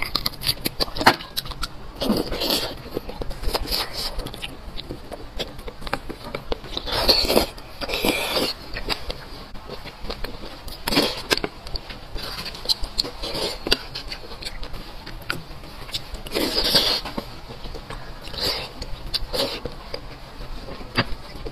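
A person eating beef bone marrow: sucking and slurping marrow from cut bone pieces, with wet chewing and lip smacks. Several louder slurps stand out among many small clicks of fingers and a spoon on the bones.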